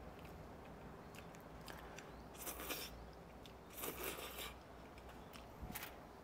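Two people eating stewed chicken and glass noodles with chopsticks: quiet chewing and small clicks, with two short louder noisy bursts about two and a half and four seconds in.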